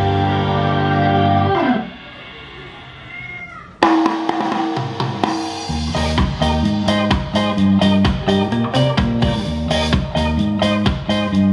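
Recorded music playing through a stereo amplifier built on TDA7265 chips and a pair of bookshelf monitor speakers. About two seconds in, the song drops to a quiet passage. About four seconds in, a loud section with a steady drum beat starts suddenly.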